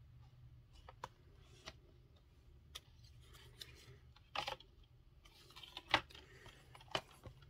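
Faint handling of a plastic 4K Blu-ray keep case: scattered light clicks and taps as it is turned over and laid down, with a short rustle a little past four seconds in and a sharper click about six seconds in.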